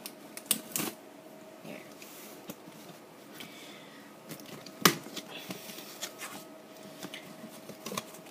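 Packaging being handled: scattered rustles and light clicks, with one sharp knock about five seconds in, over a faint steady hum.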